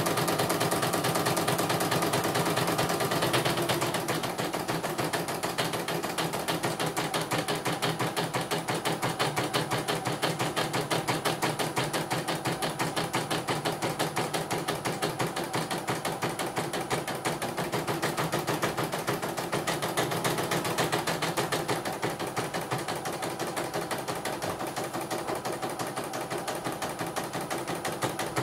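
CNY portable computerized embroidery machine stitching, its needle going up and down in a rapid, even run of clicks while the embroidery arm moves the hoop. The machine is running normally; the repair shop found no fault in it.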